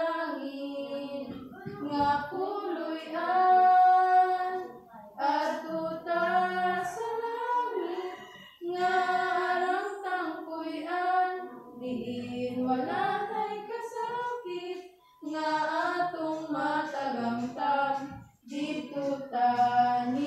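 Two young women singing a hymn together, phrase by phrase, with short breaks for breath between the lines.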